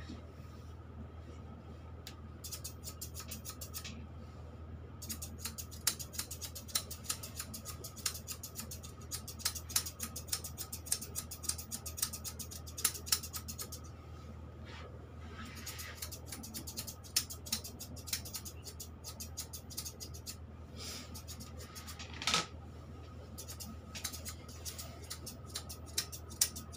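Grooming shears snipping through a long-haired cat's fur in long runs of rapid snips, with short pauses, over a steady low hum.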